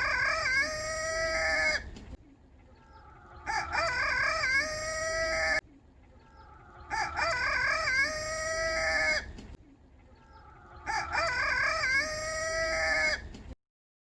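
A Silkie rooster crowing: the same cock-a-doodle-doo, about two seconds long, repeated four times at even spacing like a looped sound effect, the first already under way at the start. The sound cuts off suddenly just before the end.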